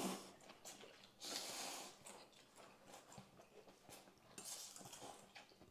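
Faint sounds of people eating bowls of noodle soup: a few short breathy noises, one about a second in and another near the end, with light clicks of spoons and bowls.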